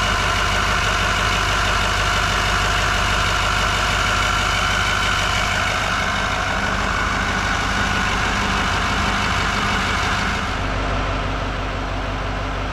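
2018 Duramax 6.6-litre V8 turbodiesel (L5P) idling steadily on its first run after a turbo replacement. A squeak comes from the power steering, which is low on fluid and foaming.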